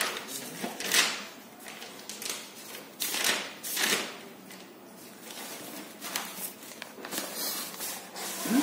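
Paper rustling and handling noise as pages of a spiral-bound notebook are turned, in several short swishes.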